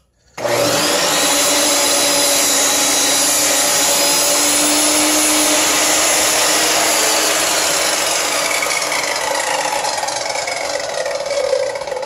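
Table saw switched on about half a second in, its motor and spinning circular blade running with a steady whine; after about eight seconds the pitch dips slightly and the sound eases a little.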